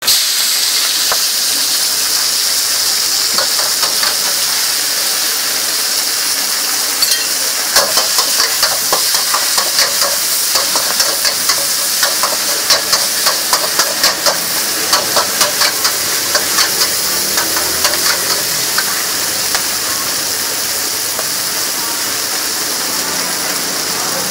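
Egg noodles and greens sizzling loudly in a hot wok, with steam hissing. From about eight seconds in until about seventeen seconds, a metal spatula scrapes and clanks against the wok at about three strokes a second as the noodles are tossed.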